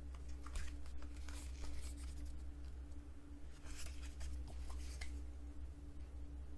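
Pages of a paper booklet being turned and handled: soft paper rustling and light taps in two spells, over a steady low hum.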